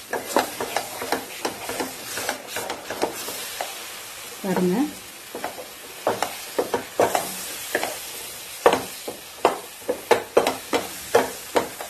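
A spatula stirring thick mango halwa in a nonstick pan: irregular soft scrapes and wet slaps, several a second. The halwa is thickened and glossy, nearly done.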